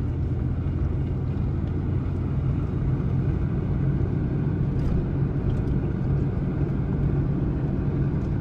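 A first-generation Toyota Tundra pickup driving on a dirt road, heard from inside the cab: a steady low engine hum with tyre rumble and a few faint ticks.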